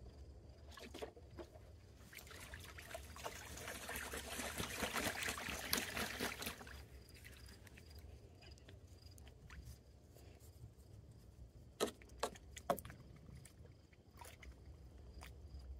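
Geese bathing in a shallow plastic paddling pool: water splashing and sloshing for about five seconds as they dip their bills and heads, then a few short, sharp splashes later on.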